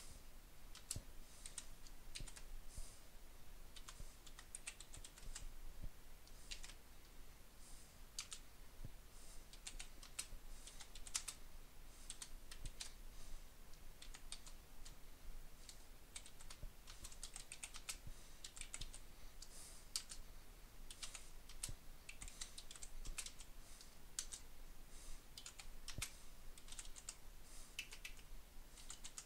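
Keystrokes on a computer keyboard, typing at an irregular pace in quick runs of faint clicks.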